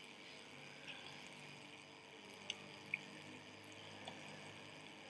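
Quiet room tone, with two faint short clicks about two and a half and three seconds in.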